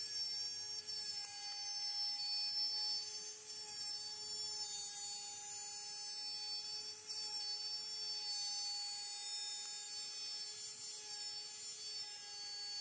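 AMB/Kress FME1050 router spindle running at high speed on a home-built CNC mill: a steady whine with many overtones, wavering slightly in pitch.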